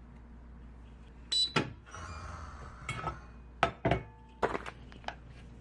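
Kitchen handling sounds: a few sharp knocks and clatters of things set down and moved about on a counter, with a brief rushing noise about two seconds in, over a low steady hum.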